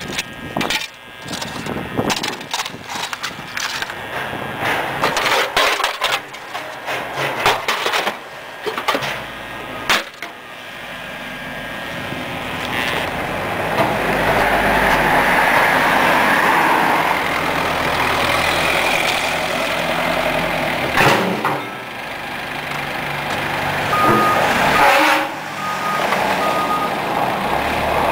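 Clatter and knocks for the first several seconds, then a vehicle engine running and growing louder, which then holds steady, with a few short beeps near the end.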